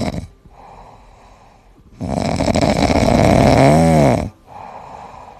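A sleeping cat snoring: a quiet in-breath, then one loud rasping snore about two seconds in that lasts about two seconds and ends in a squeaky tone rising and falling in pitch, then quiet breathing again.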